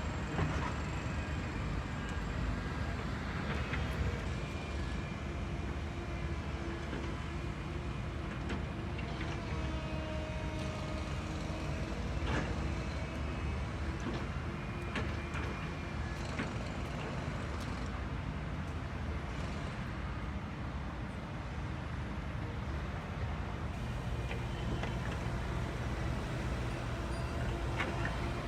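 Radio-controlled construction models running: a steady low rumble with faint motor whines that shift in pitch, and scattered small clicks.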